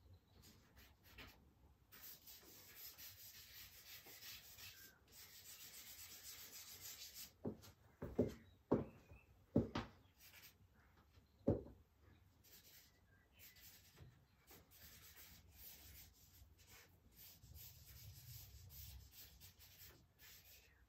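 Charcoal rubbing and scratching on drawing paper in short strokes as a portrait is shaded. Four sharp knocks, louder than the strokes, come a little past the middle.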